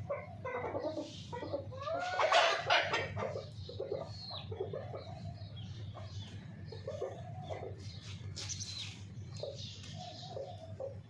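Hens clucking, a string of short calls with a louder burst of squawks about two seconds in, over a steady low hum.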